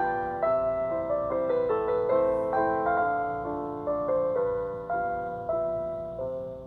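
Gentle background piano music, a melody of notes that change about twice a second and fade out near the end.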